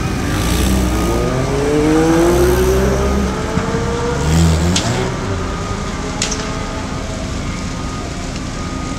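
A sedan's engine revving as it accelerates away, its pitch rising over the first few seconds and then fading, over a steady hum. Two sharp clicks follow about five and six seconds in.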